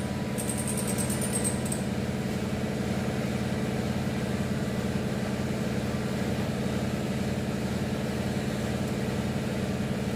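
A motor running steadily with an even low hum. About half a second to two seconds in, a faint rapid high ticking sounds over it.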